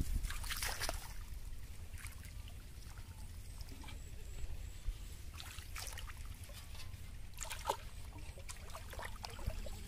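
Pond water trickling and sloshing around a person wading, with a few scattered splashes and knocks as plastic bottles are handled in an aluminium basin, over a steady low rumble.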